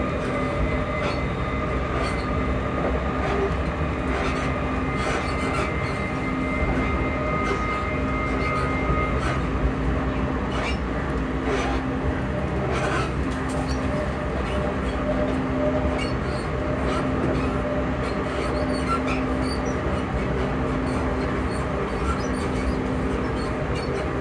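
Class 334 electric multiple unit running, its traction motors humming in steady whine tones over the rumble of the train, with scattered wheel clicks. The two higher whine tones cut out about nine seconds in, leaving a lower hum.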